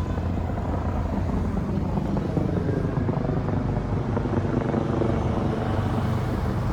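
Steady low engine rumble, with no change in level.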